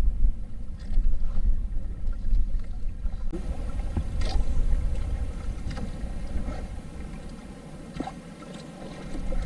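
Water sloshing against the hull of a small outrigger fishing boat, over a steady low wind rumble on the microphone, with a few light knocks and clicks as the line is handled at the gunwale.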